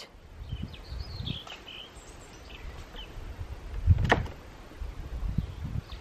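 Garden ambience: faint bird chirps, a low rumble, and a single sharp click about four seconds in.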